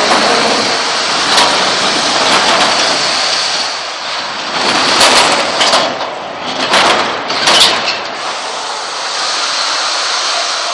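Loud, steady noise of a combat robot fight, with a cluster of sharp bangs and bursts from the robots in the middle, then back to steady noise.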